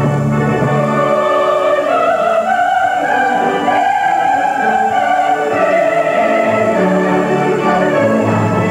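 Church choir singing long, held notes with instrumental accompaniment, the melody climbing about two seconds in.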